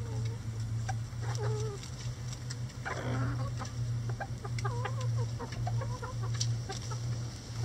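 A flock of backyard hens clucking, many short calls overlapping, with a harsher noisy squawk about three seconds in and scattered sharp taps as they peck at a hanging cabbage. A steady low hum runs underneath.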